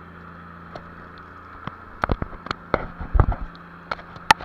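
A fishing boat's engine running steadily, with a scatter of sharp knocks and clicks starting about two seconds in, the loudest cluster about three seconds in.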